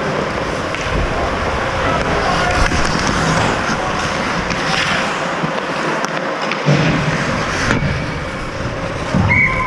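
Ice skate blades scraping and gliding on rink ice in a hockey game, a steady rasping hiss with scattered scrapes. A short high steady tone comes in near the end.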